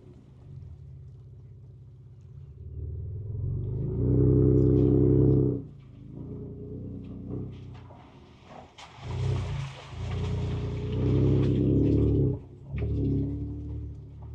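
Ford Ranger Raptor's twin-turbo V6 heard from inside the cab at low speed off-road, swelling loudly under throttle twice, about four seconds in and again near eleven seconds, with scattered knocks and rattles between.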